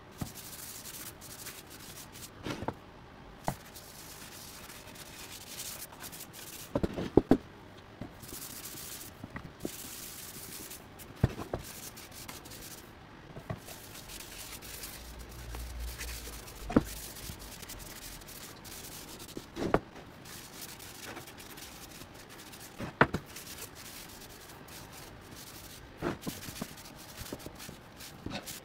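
A cloth rubbing Tru-Oil finish into the wooden sides and bottom of a small toolbox, a steady wiping sound broken by occasional sharp knocks and taps.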